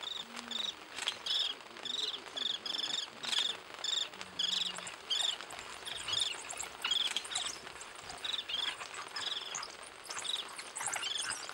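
African wild dogs twittering: a dense run of short, high, bird-like chirps, several a second, as the pack closes in on a kill.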